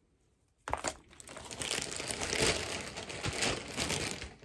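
Near silence, then less than a second in, crinkly packaging starts rustling and crinkling as it is handled, going on unevenly.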